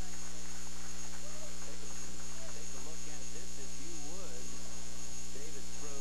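A loud, steady electrical mains hum that runs without change, with faint indistinct voices murmuring beneath it.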